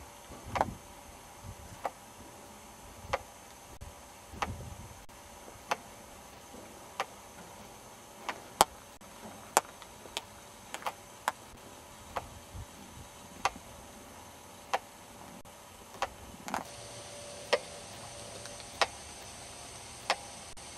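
Sharp, dry clicks, about one every second and a quarter, with a few extra clicks in between, over faint steady hiss that grows brighter about three quarters of the way through.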